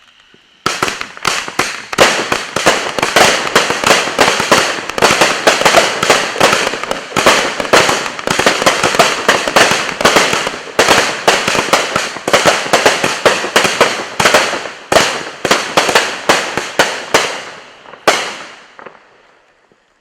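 Consumer 500-gram fireworks cake firing a fast barrage of shots, several a second, each a mine launching into a peony break. A faint hiss comes first, then the shots start sharply under a second in and run for about seventeen seconds. A last shot lands near the end and fades out.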